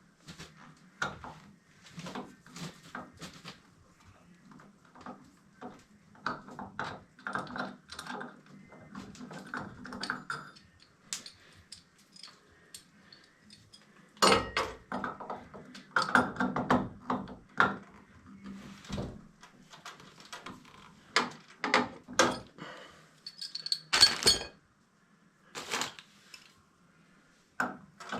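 Irregular clinks, clicks and knocks of hard objects being handled, in clusters with short gaps, over a steady low hum.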